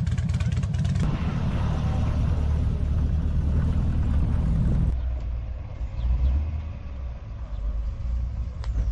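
Low rumble of a car engine running, with a few clicks in the first second; the sound changes abruptly about five seconds in.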